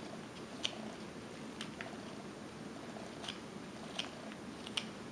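Whittling knife paring chips off a basswood carving: short, sharp snicks at uneven intervals, about seven in five seconds, over a steady low rumble.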